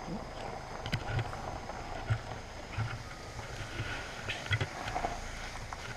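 Handling noise from a body-worn action camera: irregular soft thumps and knocks, roughly one or two a second, with rubbing and a few clicks as it is jostled and moved about.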